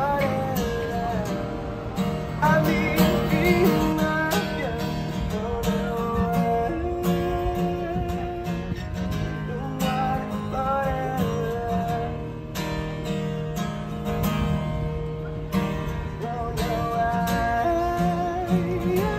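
Street musician strumming an acoustic guitar and singing a melody over it.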